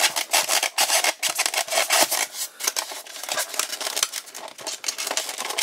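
Hard plastic toy fire engine being worked out of a tight-fitting styrofoam packing tray: dense, irregular scratching and rubbing of foam against plastic.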